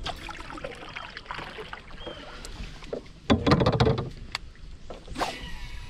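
Kayak moving on a river: water sloshing and splashing around the hull, with small knocks and clicks from the boat and gear, and a louder burst of splashing a little over three seconds in.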